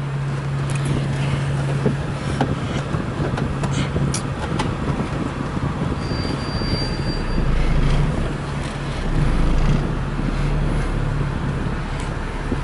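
Car on the move, heard from inside the cabin: a steady engine hum over road noise, swelling briefly twice in the second half, with a few light clicks and a short thin high tone about halfway through.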